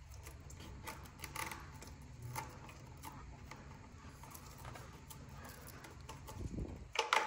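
Light clicks, taps and rubbing of hands handling cables against the plastic frame and controller cover of an e-bike, over a steady low hum, with a few louder clicks near the end.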